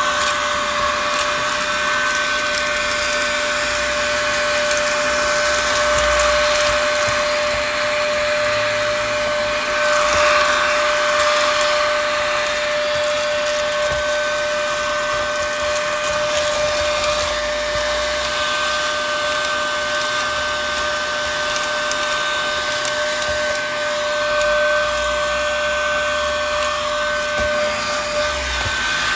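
Heat gun running steadily: a constant whine over a rush of blown air.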